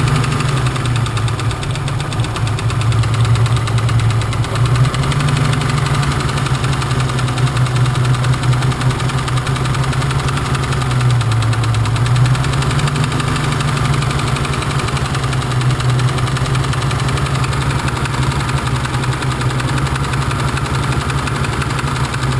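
BMW M30 straight-six engine idling with a knock from one cylinder. Its leads are being pulled one cylinder at a time to find the knocking cylinder.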